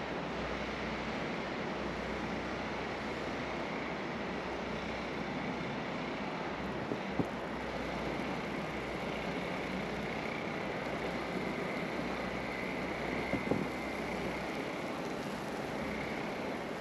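Steady outdoor rushing noise with a low hum, broken twice by a faint knock.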